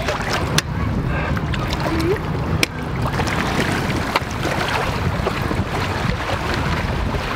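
Wind buffeting the microphone over water splashing and lapping around legs wading in the shallows, with a few short sharp knocks.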